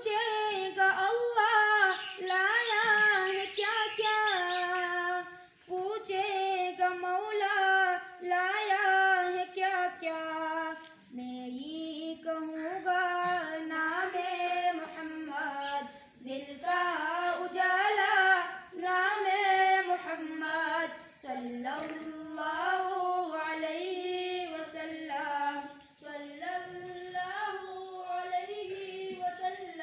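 Boys' high voices singing an Urdu naat unaccompanied: a slow, ornamented melody in long phrases of about five seconds, with short pauses for breath between them.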